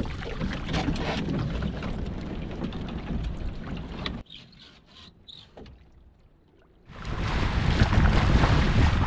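Water slapping and splashing against a Hobie 16 catamaran's hull, with knocks, as a person climbs aboard. About four seconds in it drops to near quiet. From about seven seconds in there is a loud, steady rush of wind on the microphone and water streaming past the hull as the catamaran sails at speed.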